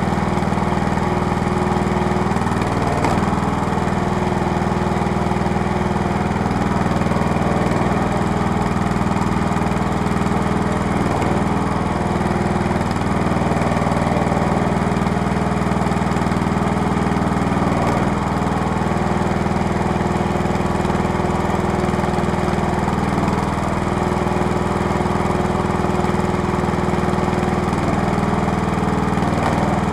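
The small engine of a homemade hydraulic log splitter runs steadily, driving the hydraulic pump, while logs are split. A higher whine comes and goes several times over the steady engine note.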